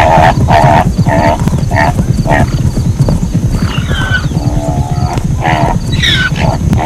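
Zebra calling: a run of short, barking yelps about two a second, then a few longer calls that fall in pitch, over a steady low rumble.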